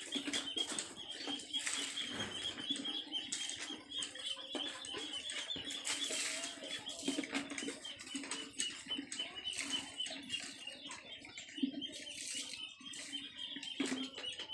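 Water splashing and pattering in irregular bursts as it is poured from a dipper over a bicycle and runs onto the ground, with a steady high-pitched chirping behind.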